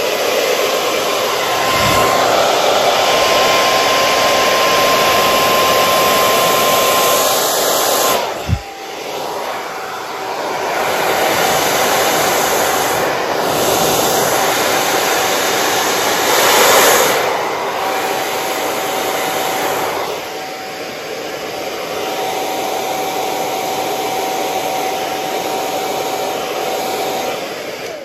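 Handheld hair dryer running, a steady rush of air with a thin motor whine, blowing wet acrylic paint outward across a canvas. About a third of the way in there is a click and the whine settles lower; the loudness swells and dips as the dryer moves, and it cuts off at the end.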